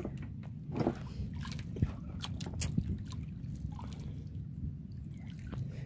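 Water lapping and sloshing against the hull of a wooden outrigger fishing boat, with scattered small clicks and knocks over a low steady rumble.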